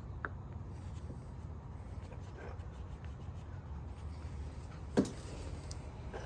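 Cloth rubbing metal polish onto a chrome window crank handle, a faint scratchy rubbing, with a single sharp knock about five seconds in.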